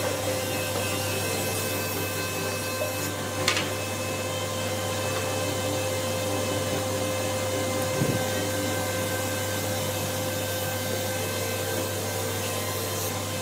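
Taiyo jointer running steadily as a long board is fed across its cutterhead. Two brief knocks come through, one about three and a half seconds in and another around eight seconds.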